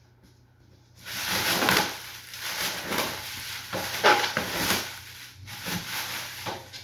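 Cardboard box and packing rustling and scraping as the heavy welder is worked out of its carton, with a few sharper knocks among it. The rustling starts about a second in.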